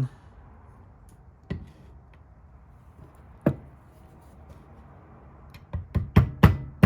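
Two single light clicks, then near the end a quick run of about five hammer taps driving a roll pin into the line fitting of a clutch slave cylinder.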